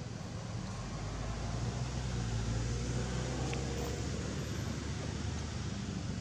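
Steady low engine rumble of a passing motor vehicle, swelling a little about two seconds in.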